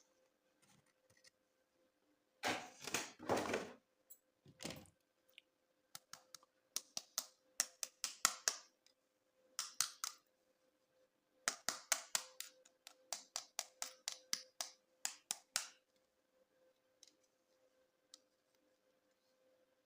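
Hands handling plastic toys and packaging: a brief rustle, then clusters of quick, sharp plastic clicks and taps, over a faint steady hum.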